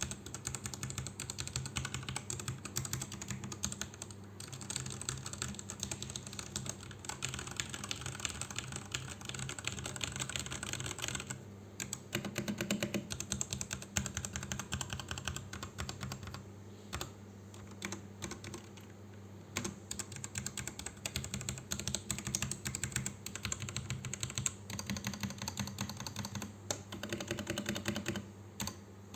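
Fast typing on a Dare-U EK884 mechanical keyboard with brown switches: a dense run of keystrokes that thins to scattered single presses for a few seconds past the middle.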